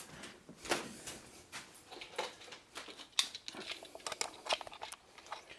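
Scattered light taps, knocks and rustles from someone moving through a room and handling things, mixed with handling noise from a hand-held camcorder.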